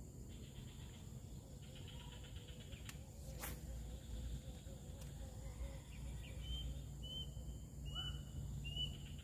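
Rural outdoor ambience: a steady low rumble under faint insect buzzing, one sharp click about three and a half seconds in, and a bird calling in short repeated notes over the last few seconds.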